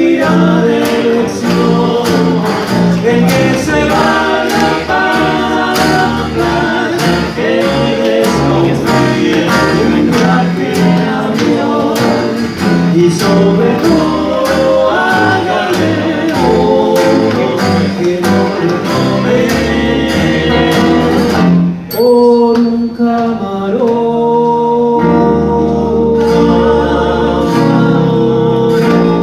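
Small swing band with snare drum, washboard, tuba, guitar and banjo playing the closing bars of a song over a steady beat. About 22 seconds in the percussion stops and the band holds a long final chord.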